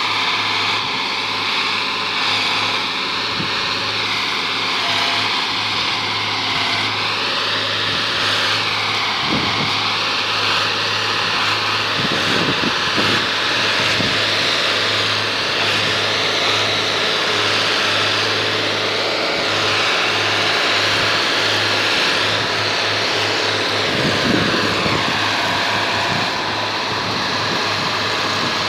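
Engine of a railway track-laying gantry machine running steadily, with a constant low hum and a few dull knocks.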